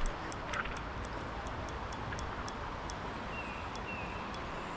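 Steady rush of a fast-flowing, rain-swollen stream, with light sharp ticks a few times a second over it.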